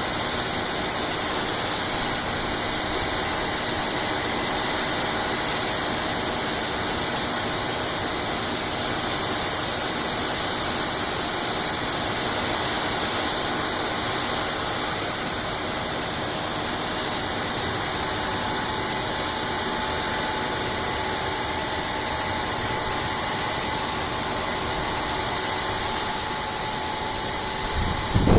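Harvest machinery running steadily: a constant mechanical drone with a high whine, a further faint steady tone joining about two-thirds of the way through.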